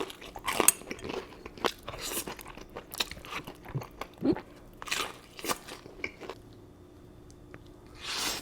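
A person biting and chewing crunchy food: irregular crisp crunches for about six seconds, then quieter chewing, with a short noisy burst near the end.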